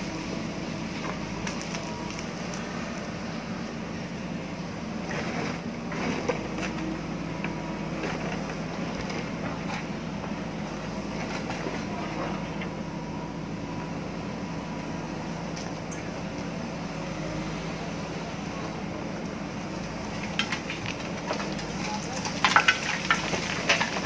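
JCB backhoe loader's diesel engine running steadily under load as the backhoe arm digs. Near the end comes a quick run of sharp cracks and knocks.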